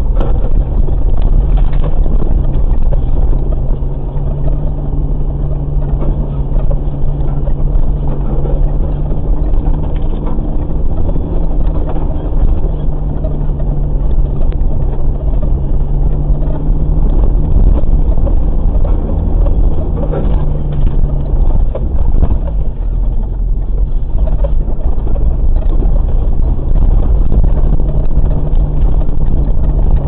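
Off-road vehicle engine running at low speed as the vehicle crawls over a rough dirt forest track, heard from inside the cab, with occasional knocks. The low engine hum is steady, fades for a few seconds about two-thirds of the way through, then returns.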